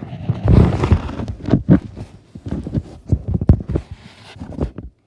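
Loud handling noise close to the microphone: a run of irregular knocks and thumps with rubbing between them, stopping just before the end.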